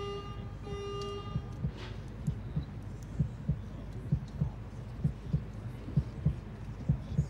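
Two short electronic horn beeps, the archery signal calling the archers to the shooting line. Then a heartbeat sound effect starts: low paired thumps, a little under one pair a second.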